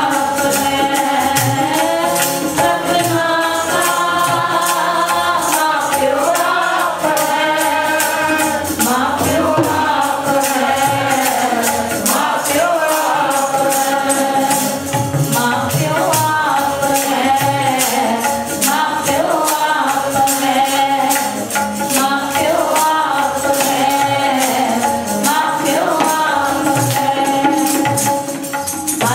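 Sikh keertan: a devotional hymn sung over harmonium with tabla and a steady percussive beat.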